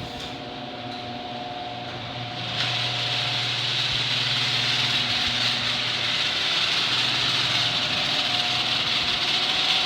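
Genie screw-drive garage door opener running, its motor and screw drive moving the door with a steady hum and a noisy mechanical hiss that steps up in loudness about two and a half seconds in.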